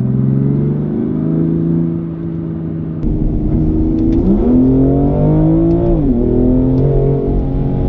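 BMW M2 Competition's 3.0-litre twin-turbo inline-six heard from inside the cabin under way, its pitch climbing slowly at first. The revs jump up about four seconds in, keep rising, and drop sharply about six seconds in at a shift of the seven-speed dual-clutch gearbox.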